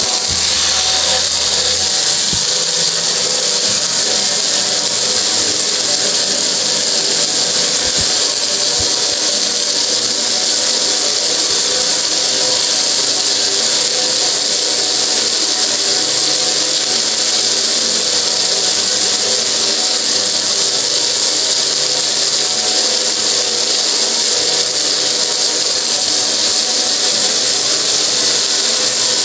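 Pressure washer running steadily, its jet of water spraying against a metal gas grill: a loud even hiss of spray over a faint steady motor whine.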